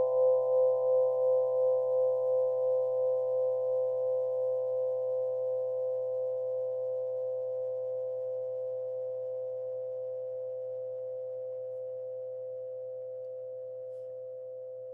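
Crystal lyre, tuned to 432 Hz, with a chord left ringing and slowly dying away. Several clear tones sound together, pulsing gently at first as they beat against each other, then fading smoothly.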